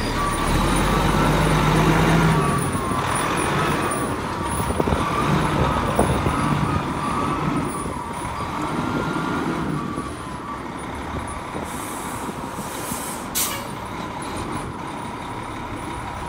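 Fire engine's diesel engine running as the truck backs into its bay, loudest for the first couple of seconds and settling lower later. Its reversing beeper sounds briefly at the start, and about 13 seconds in the air brakes give a short, sharp hiss as the truck is parked.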